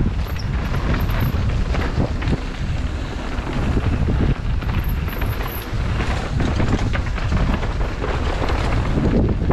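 Mountain bike riding down a dirt trail, with wind buffeting the microphone. Frequent knocks and rattles come from the bike over bumps.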